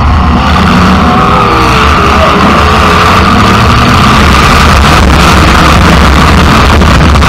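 Demolition derby car's engine running loud and steady through open exhaust stacks that stick straight up through the hood, close enough to overload the recording.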